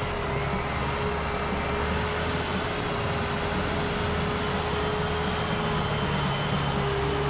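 An engine running steadily, a constant drone with a held mid-pitched tone over a low hum, with no revving or cutting strokes.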